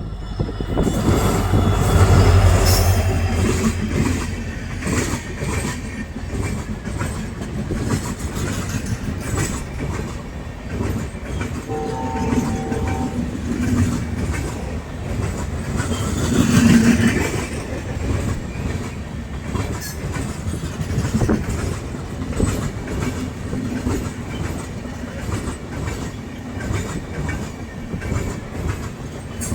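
Train running past, wheels clattering rhythmically over rail joints with a continuous rumble, and a short horn note about twelve seconds in.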